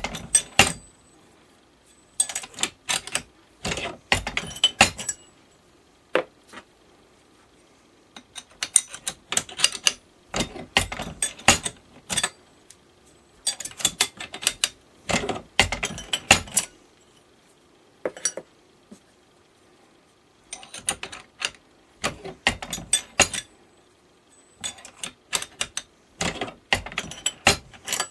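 Hand-lever metal bender being worked while forming laser-cut steel clamp bodies: bursts of metal clicks and clanks as steel pins are set in its holed die plate, the lever is swung and the steel strip is bent, with short pauses between the bursts.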